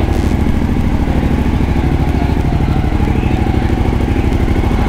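Suzuki V-Strom 1050XT's V-twin engine idling steadily.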